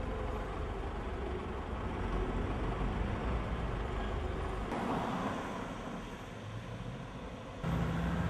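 Street traffic noise as cars pass on the road. Near the end it turns suddenly louder, with a low engine hum.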